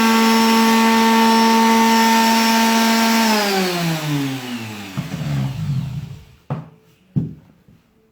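Electric sander running steadily, then switched off about three seconds in, its motor whine falling in pitch as it spins down. Two short knocks follow near the end.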